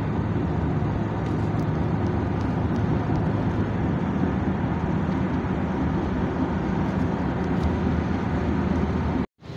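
Steady road and engine noise of a moving car, heard from inside the cabin. It cuts off suddenly near the end.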